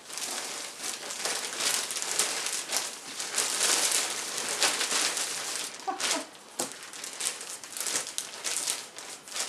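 Thin clear plastic bag crinkling and rustling as it is handled and pulled open around a folded T-shirt, a dense run of small crackles throughout.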